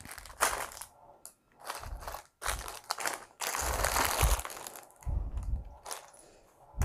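Small clear plastic bags of minifigure parts crinkling as they are handled and pushed together, in irregular bursts with a longer spell in the middle and some soft thumps.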